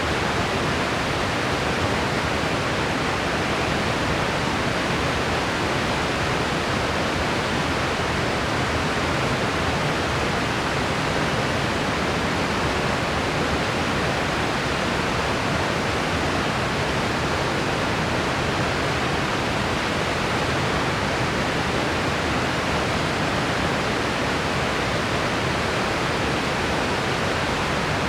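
Steady, unchanging hiss of a white-noise track, even from low to high with no rise, fall or break.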